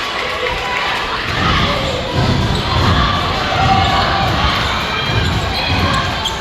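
A basketball bouncing on a gym floor, giving irregular low thuds from about a second in, over the steady chatter of a crowd in a large hall.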